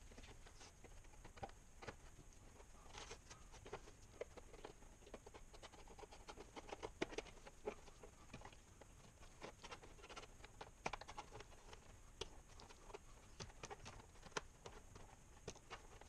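Faint, irregular scratching and small clicks of a hobby knife blade scraping old sticker residue off the plastic base of a 1979 Hot Wheels Service Center playset.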